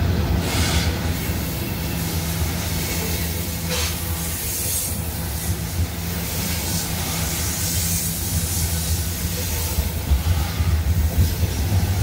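CSX freight train's hopper cars rolling past on a steel girder bridge: a steady, loud low rumble of steel wheels on rail, with brief higher rasps from the wheels about half a second and four seconds in.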